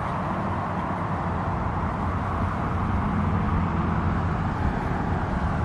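Steady road traffic noise: cars running on a street, with a low engine hum under an even rush.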